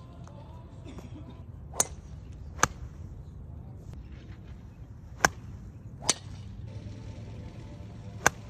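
Golf irons striking range balls: five sharp, short clicks, two pairs a little under a second apart and then one more near the end.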